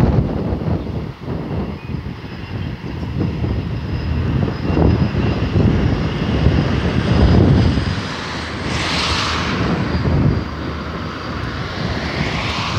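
Diesel locomotive running under load as it hauls a Talgo passenger train past, a steady engine drone with the rumble of the coaches on the rails. Wind buffets the microphone, and a hissing rush swells about nine seconds in and again near the end.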